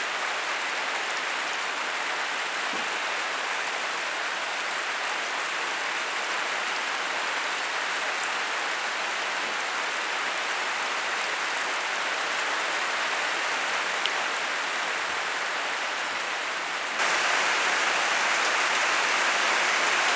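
Steady rain falling, an even hiss. About 17 seconds in it steps up suddenly, louder and closer, with rainwater running off a roof gutter.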